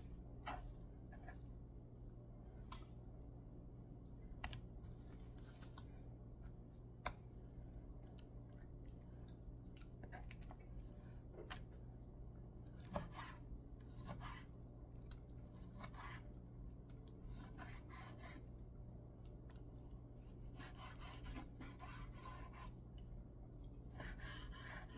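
Chef's knife slicing raw chicken breast into strips on a wooden cutting board: faint scattered knocks of the blade meeting the board, with soft scraping as the knife draws through the meat. A low steady hum runs underneath.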